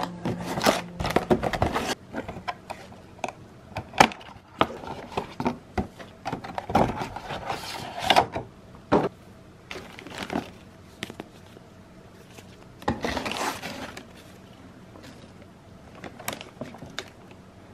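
Hands handling packaging in a cardboard shipping box: plastic-wrapped cardboard boxes of hand cream rustling and crinkling, with irregular taps and scrapes of cardboard. The handling is busiest in the first half and thins out over the last few seconds.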